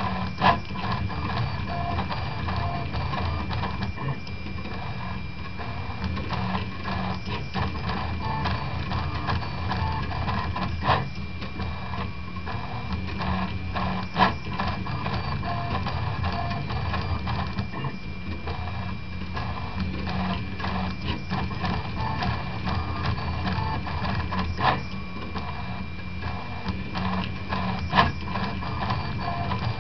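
Prusa Mendel 2–style RepRap 3D printer running a print: its stepper motors whir as the axes move, with a steady high whine and a few sharp clicks.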